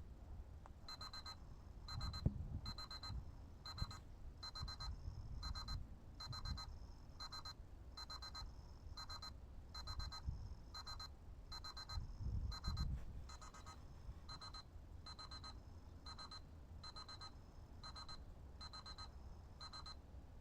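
Electronic alarm beeping: a steady run of short high-pitched beeps, about one every three-quarters of a second, starting about a second in and stopping just before the end. A low rumble with a few dull thuds runs underneath, loudest about two seconds in and again a little past the middle.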